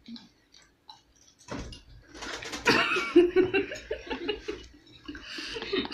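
A young woman laughing in short repeated bursts, starting about a second and a half in, after a few faint clicks of hands and food on plates.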